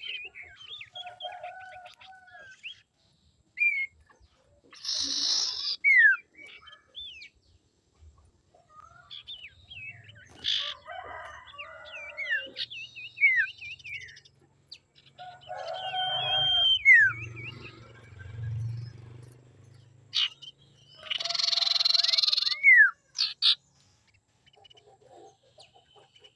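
Common iora calling: runs of clear whistles, quick trills and sharply falling whistled slurs. Three times it breaks into a louder harsh, rasping chatter.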